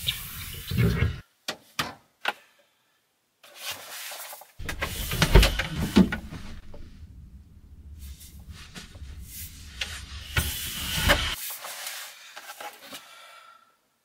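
Campervan fridge and cupboard being opened and rummaged in: clicks, knocks and rustling in several short bursts, broken by abrupt cuts and brief silences.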